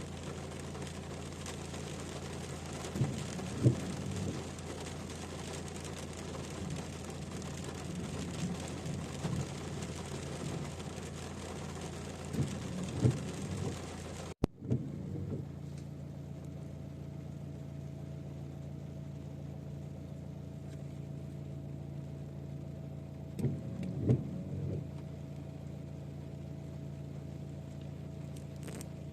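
A steady low mechanical hum with a few brief paired thumps, three times. About halfway through it cuts off for an instant, and a thin steady tone then runs alongside the hum.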